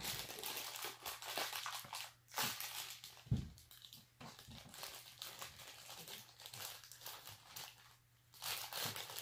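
Crinkly black foil blind bag from a Funko Mystery Mini being scrunched and torn open by hand, in on-and-off bursts, with a soft thump about three seconds in.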